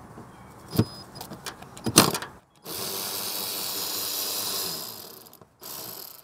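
Tool work on a small bracket bolt in a car's engine bay: two sharp metallic clicks, then about three seconds of steady hiss-like noise that fades out near the end.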